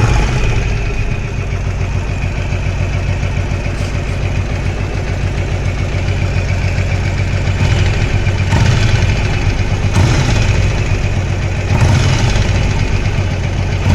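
Yamaha XVS1100 Drag Star's air-cooled V-twin idling steadily, with a small knock coming from the right side of the engine whose cause is not yet known.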